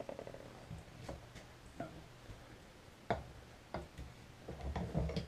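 A few scattered light clicks and knocks of small hard objects being handled and set down on a workbench, with a short cluster of taps near the end.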